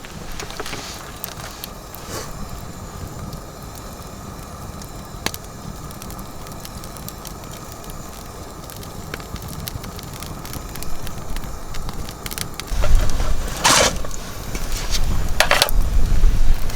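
Wood fire crackling, with scattered sharp pops. In the last few seconds strong wind gusts buffet the microphone with a low rumble.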